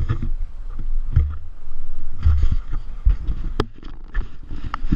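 Low, uneven rumbling on the microphone of a camera riding a moving narrowboat, surging a couple of times, with a sharp click about three and a half seconds in.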